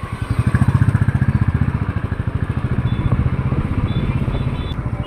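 A small vehicle engine running close by with a rapid, even chugging pulse, heard from on board as it drives along a street.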